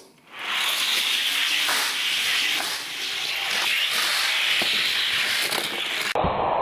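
Toy car rolling down a toy race track: a steady hissing rub of small wheels on the track with faint scattered clicks. It changes abruptly near the end.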